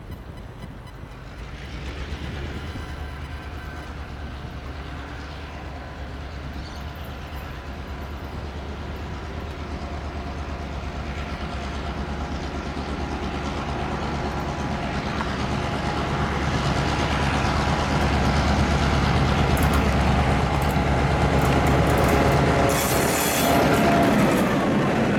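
Diesel locomotive hauling passenger carriages approaching and passing close by. Its engine drone grows steadily louder, and there is a brief shrill burst as the locomotive draws level near the end.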